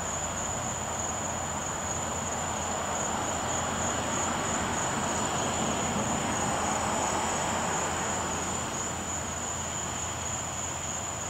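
Crickets trilling steadily in one constant high note over a steady rushing hum.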